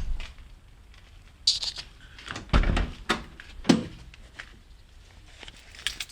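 A handful of separate knocks and thuds with quiet between them, the heaviest thud about two and a half seconds in.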